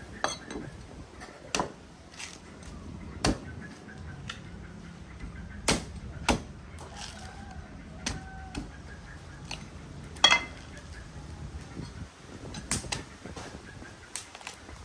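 Cleaver chopping into green coconuts on a wooden board: about a dozen sharp, uneven chops a second or more apart, the loudest about ten seconds in.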